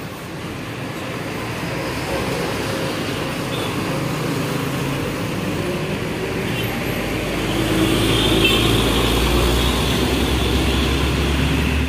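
Heavy diesel trucks passing close by one after another, with tyre noise and engine rumble; the rumble grows louder over the last few seconds as a large box truck and motorcycles pass.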